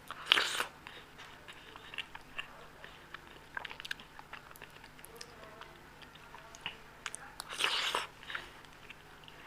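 Close-up eating sounds of a person chewing Indian sweets: soft chewing with scattered small clicks, and two louder bursts of biting noise about half a second long, one just after the start and one near the end.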